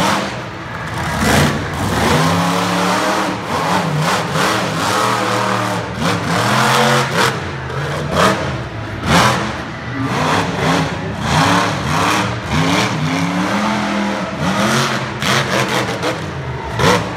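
Monster truck engine revving hard over and over, its pitch climbing and dropping every second or two as the throttle is worked through wheelies and jumps. Short sharp knocks break in between the revs.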